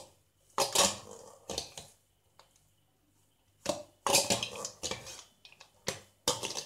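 A metal spoon scraping and turning cooked rice mixed with roasted peanuts against a stainless steel bowl. It comes in three bouts of scraping with short pauses between.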